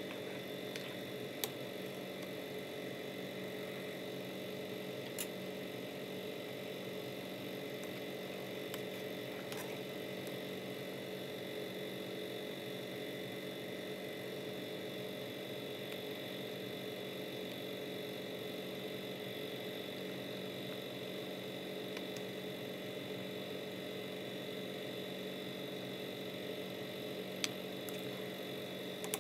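A steady hum with a few faint ticks, holding one level throughout.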